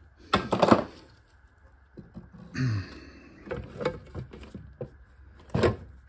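Cast aluminium engine timing cover being turned over by hand: a loud clatter about half a second in, scattered knocks in the middle, and a thunk near the end as it is set down.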